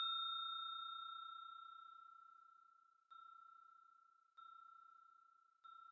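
End-screen ding sound effect: a bell-like ring fades out over about two seconds, then comes back three times more faintly, about every second and a quarter.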